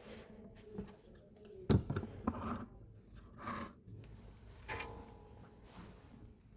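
Light handling noise on a workbench: a few soft knocks and scrapes of tools and parts being moved, the sharpest knock about two seconds in.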